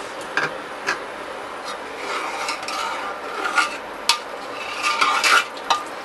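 Metal ladle stirring a watery sambhar in a pressure cooker. It scrapes along the bottom and clacks sharply against the pot's sides now and then.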